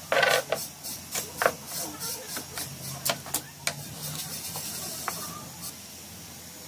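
Small hard objects, concrete discs and plastic sheets, being set down and shifted on a work table: a series of sharp knocks and clacks over a steady hiss. The knocks are loudest in the first second and a half and die away after about five and a half seconds.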